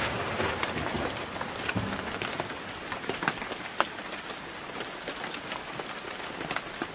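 Steady rain, a close hiss with many separate drops ticking on a hard surface. The tail of a loud thunderclap fades out at the start.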